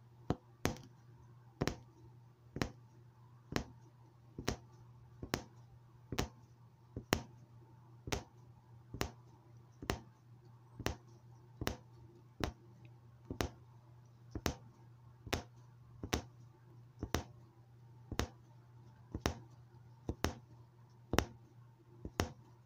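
Punch needle piercing fabric stretched taut in an embroidery hoop: one sharp click about every second as each stitch is punched, over a low steady hum.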